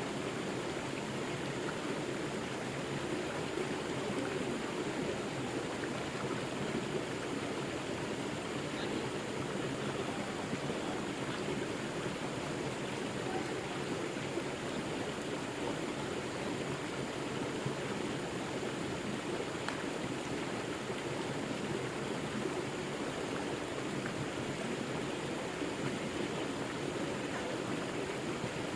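River water flowing steadily: an even, unbroken rushing.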